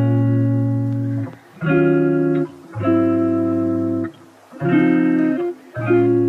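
Background music: a run of held chords, each lasting about a second, with short breaks between them.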